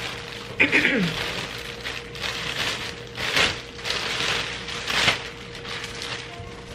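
Clear plastic wrapping crinkling and rustling in a run of tugs as it is pulled off a folded stroller, with a short vocal sound just under a second in.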